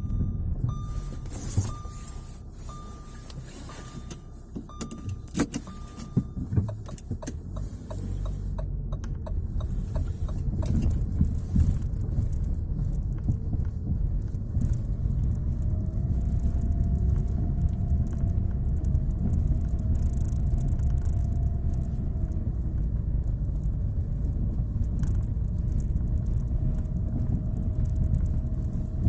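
Lada Vesta rolling slowly over uneven road, with a rapid, rattling knock from the front left of the car on the bumps, over steady tyre and road rumble. During the first six seconds a warning chime beeps over and over.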